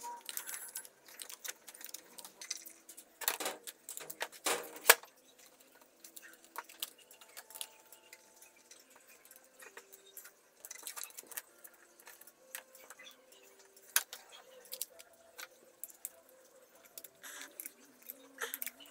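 Metal clinks, clicks and rattles of a square-hole drill adapter's steel parts being handled and fitted to an electric drill, with a few sharper knocks a few seconds in and once more later on.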